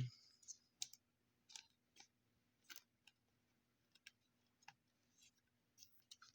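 Faint, scattered clicks and light rubbing of stiff Bowman Chrome trading cards being flipped through by hand, about two clicks a second over near silence.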